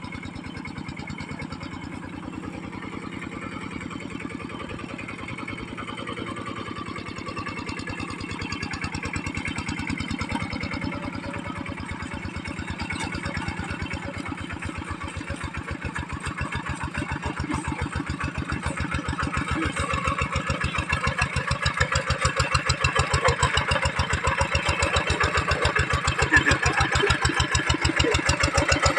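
Kubota single-cylinder diesel engine of a hand tractor running with an even, steady beat, growing louder over the second half.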